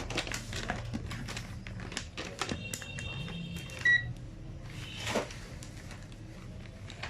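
Small clicks and knocks of a charger, its plug and meter probes being handled during a voltage check, with a short, sharp electronic beep about four seconds in.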